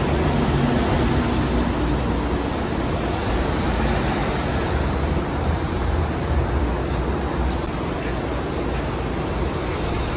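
City bus engine running as the bus pulls out and drives past, with a deep rumble, tyre and traffic noise, and a faint thin high whine held over much of it.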